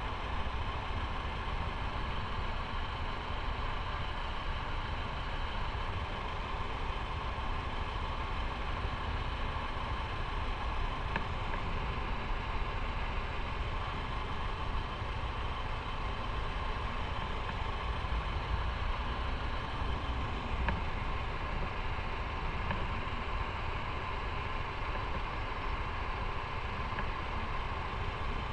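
Motorcycle engine running steadily, with a constant noise that does not change for the whole stretch.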